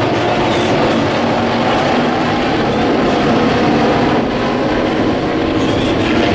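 Sport modified dirt-track race cars' V8 engines running at racing speed, a loud, steady drone of several cars at once.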